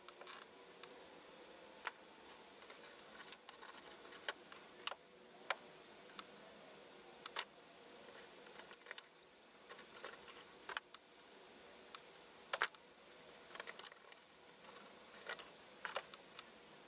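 Faint, irregular small clicks and ticks as axial-lead diodes and their wire leads are handled, pushed into a circuit board and bent into place, with a tweezer tap now and then.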